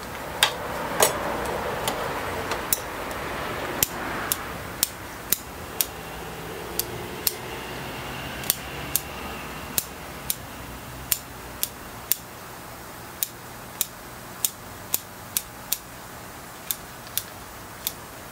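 A thin metal root pick teasing soil out of a bonsai's root ball: a run of sharp ticks about twice a second, with a crumbling rustle of soil loudest in the first few seconds.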